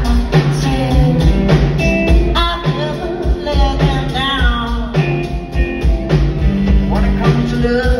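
A live band plays, with a drum kit keeping the beat and electric guitars, while a woman sings lead. The voice slides up and down in pitch between held notes.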